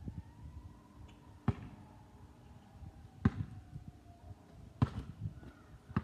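A basketball bouncing on concrete pavement: four loud bounces about a second and a half apart, with a few softer bounces between them.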